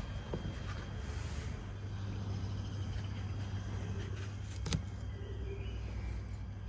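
Steady low outdoor background hum, with one short sharp tap about two-thirds of the way through.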